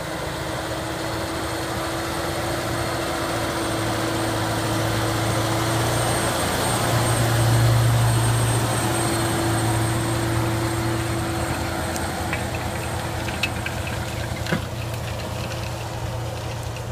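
Kubota M7171 tractor's four-cylinder diesel engine running steadily under load while pulling a reversible plough, growing louder as it passes close by about halfway through, then fading as it moves away.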